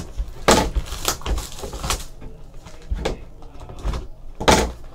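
Hands handling trading-card packs and a cardboard card box, making wrapper and cardboard rustling in several short bursts with light knocks on the table.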